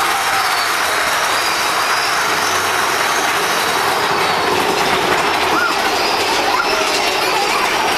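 Big Thunder Mountain Railroad mine-train roller coaster heard from on board: a steady, loud rumble of the cars running along the track, with a few brief high squeals about five and a half and six and a half seconds in.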